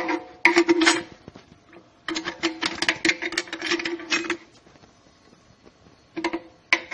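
Steel clutch plates and friction discs of an RE4R01B automatic transmission's low-and-reverse brake clutch pack clinking and rattling against each other and the case splines as they are lowered and pressed into the stack. The clinks come in three clusters, with a faint metallic ring under them.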